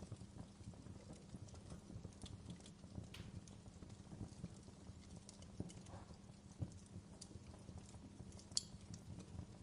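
Wood fire in a fireplace crackling faintly, with irregular small pops over a low steady rumble of the flames. One sharper pop comes near the end.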